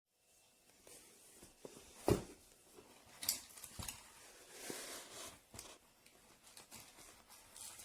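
Faint, scattered clicks and knocks, the loudest about two seconds in, over quiet room noise.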